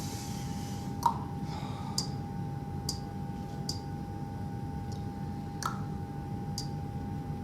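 Scattered short, sharp clicks, about one every second, over a steady low hum and a thin steady whine.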